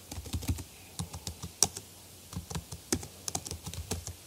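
Typing on a computer keyboard: a run of irregular keystrokes, with a short pause near the middle.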